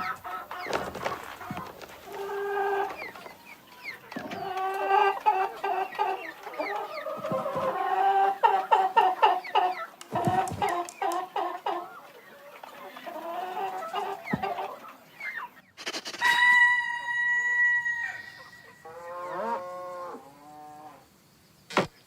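Chickens clucking in quick runs of calls, then a rooster crowing with one long held note later on.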